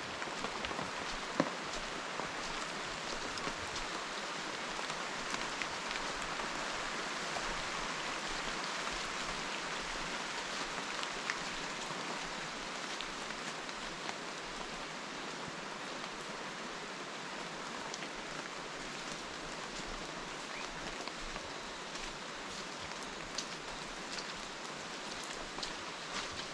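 Steady rain falling, with single drops ticking close by and one sharp tap about a second and a half in.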